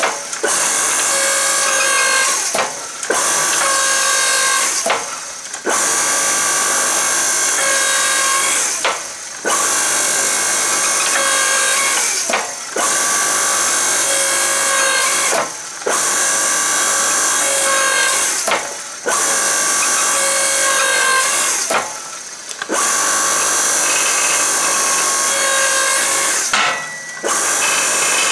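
Electric log splitter's motor and hydraulic pump running under load as the press ram squashes a hot steel bar. The steady machine noise, with a few held tones in it, breaks off briefly every three to four seconds.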